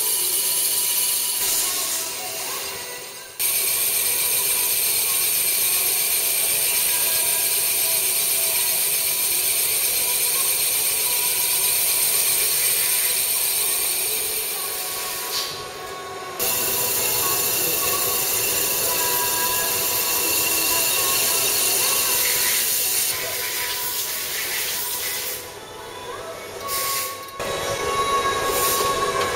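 CNC machine cutting an aluminium air compressor cylinder: a steady, loud hissing machining noise with a few steady hums, dropping out briefly twice, a little over three seconds in and around the middle.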